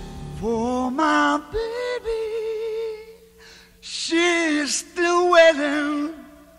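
A young child's high voice making several drawn-out, sing-song calls, with long held notes; the loudest, about four seconds in, is a shrill squeal. Background guitar music fades out at the start.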